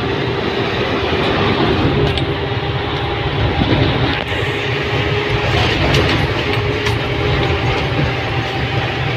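Inside a moving truck's cab at highway speed: the steady drone of the engine together with road and wind noise, with a steady whine running over it.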